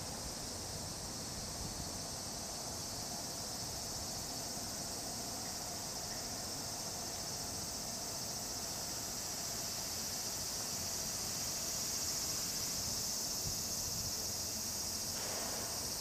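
Steady, high-pitched shrilling of summer cicadas in chorus, a little louder past the middle.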